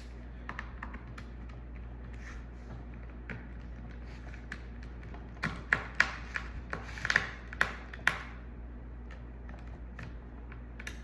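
Light clicks and taps of a small screwdriver and hands on a laptop's plastic case as screws are tightened. Scattered at first, busier about halfway through, over a steady low hum.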